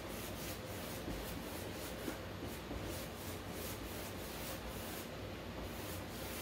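Paintbrush rubbing back and forth across a canvas board, blending wet acrylic paint: a steady run of short brush strokes, about three to four a second.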